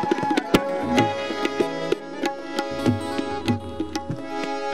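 Instrumental break in a Hindi devotional song (bhajan): a hand drum plays a rhythm of low strokes and sharp slaps under held melody notes.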